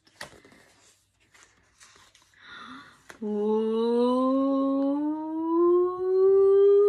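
Soft rustling and tapping of stiff picture-book pages being handled, then, about three seconds in, a woman's voice humming one long note that rises slowly and steadily in pitch.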